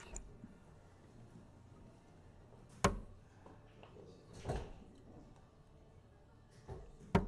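Two steel-tip darts hitting a Winmau Blade 6 sisal bristle dartboard about four seconds apart, each a single sharp thud.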